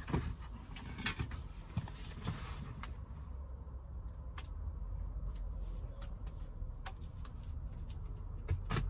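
Handling noise of plastic car trim and small install parts: a flurry of light clicks and rustles in the first few seconds, then scattered single clicks and a sharper knock near the end, over a steady low rumble.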